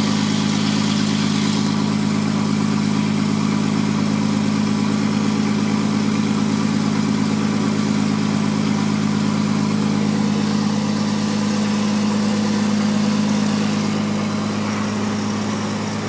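Helio Courier's turbocharged Lycoming TIO-540 six-cylinder engine and propeller running steadily at idle, swelling slightly about two-thirds of the way through and easing off near the end.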